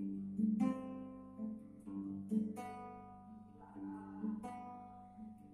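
Acoustic guitar playing slow picked chords, each stroke ringing and then fading before the next.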